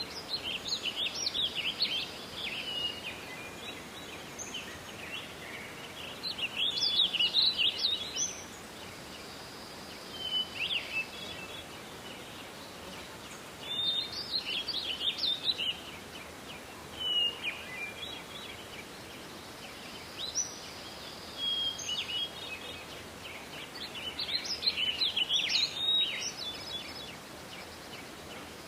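Songbirds singing in a forest, short phrases of varied high chirps and trills coming every few seconds, over a steady background hiss of forest noise.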